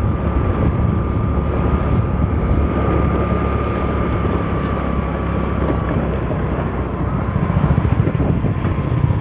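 Wind buffeting the microphone over the low running of a two-wheeler's engine while riding along a road, with a thin steady whine that stops about six seconds in.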